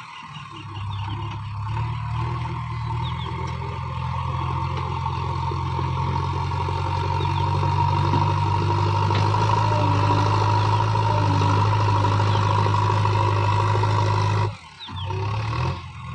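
JCB 3DX backhoe loader's diesel engine running steadily, growing louder over the first several seconds, then breaking off abruptly near the end before picking up again.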